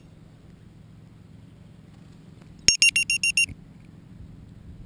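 Piezo low-voltage alarm on the quadcopter's exhausted LiPo battery beeping: a rapid burst of about seven short, high-pitched beeps lasting under a second, signalling that the pack is drained.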